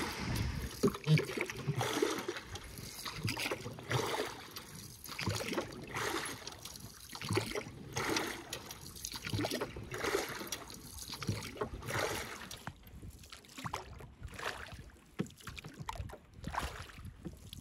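Oars rowing a small dinghy: a stroke about every second and a half, the blades dipping and pulling through the water with splashing and dripping.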